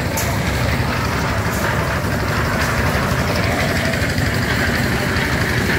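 An engine running steadily, a continuous low rumble with no rises or breaks.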